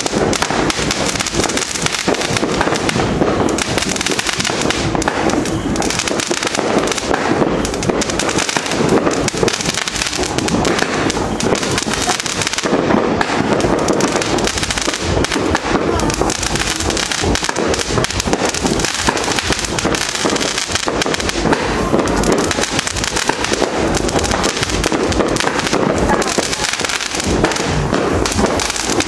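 Fireworks and firecrackers going off in a dense, unbroken barrage of rapid bangs and crackling.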